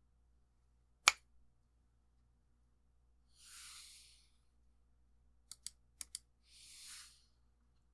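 Isolated clicks from a NovelKeys NK65 aluminum mechanical keyboard with Blue Velvet tactile switches: one sharp click about a second in, then two pairs of quick clicks, like keys pressed and released, a few seconds later. Between and after them are two soft hisses of about a second each.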